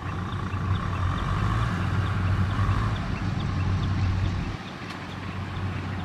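Kubota M6040SU tractor's diesel engine running steadily with a low hum, louder for the first four and a half seconds and then easing off.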